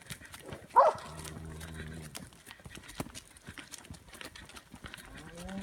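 Hoofbeats plodding along at a walk, with cattle lowing: a steady low moo about a second in and another starting near the end. A short sharp call just before the first moo is the loudest sound.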